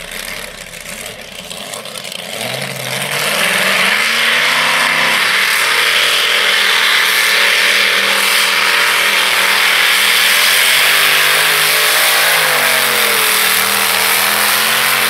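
Engine of a modified-class pulling tractor revving up over the first few seconds, then running loud and steady at high revs. Its pitch dips briefly and recovers about twelve seconds in.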